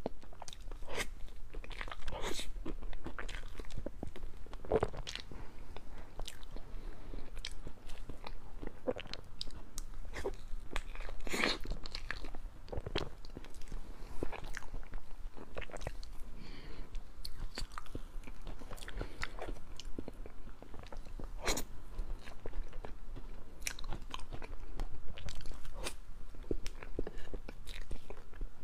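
Close-miked eating sounds of soft chocolate cake with a berry-jam layer: chewing and wet mouth smacks, with irregular short clicks every second or so.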